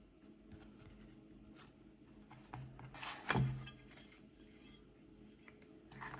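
Hands handling an access point and its packaging: soft rubbing and scraping with small clicks, and one sharp knock a little after three seconds in, the loudest sound.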